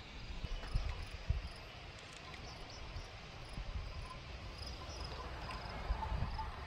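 Insects chirping faintly in a mountain meadow, over a low rumble of wind on the microphone.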